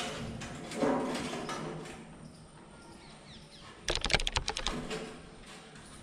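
A thin sheet-metal ghee tin bumping and clanking against a steel window grill as it is hung up, with short ringing knocks. Around four seconds in there is a quick rattle of about eight sharp metal clicks.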